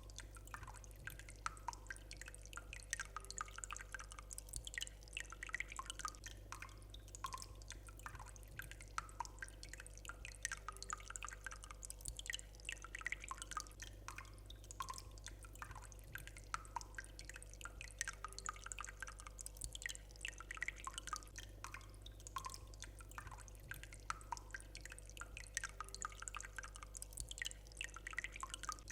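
Faint, irregular dripping of water, many small drops, over a steady low electrical hum.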